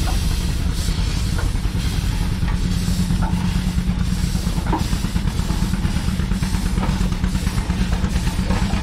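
Baker steam traction engine running close by, its exhaust chuffing in a fast, even beat over a low rumble.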